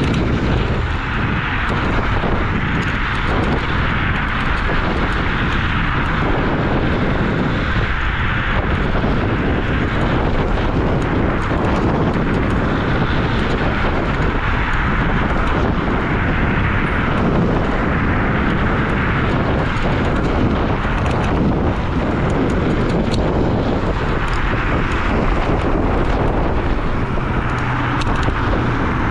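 Steady rush of wind over the microphone and road noise from a Dualtron Victor electric scooter ridden at speed in traffic.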